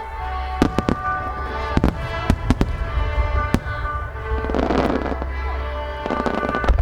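Fireworks going off: several sharp bursts in the first few seconds, then a crackling shower of stars about four and a half seconds in and again near the end, over a steady low rumble and accompanying music.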